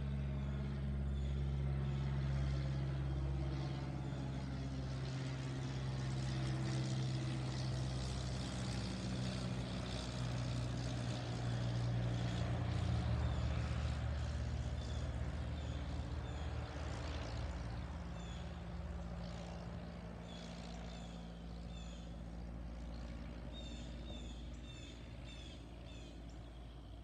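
Cessna 172 Skyhawk single-engine propeller plane flying over: a steady engine-and-propeller drone that grows louder, drops in pitch as the plane passes overhead about 13 seconds in, then fades as it flies away.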